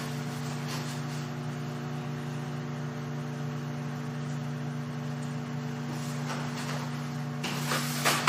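Microwave oven running, a steady hum while it heats food, with a brief clatter near the end.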